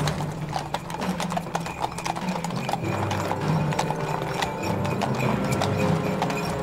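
A pair of harnessed horses' hooves clip-clopping quickly on hard paving as they draw a cart: a rapid, continuous run of hoofbeats.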